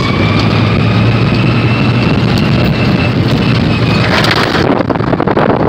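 Dodge Ramcharger's engine pulling hard in fourth gear with the transfer case in locked low range, with wind noise over the open cab and a faint high whine rising slightly over the first few seconds. From about four and a half seconds in, the truck bangs and rattles as it bounces over the dirt track.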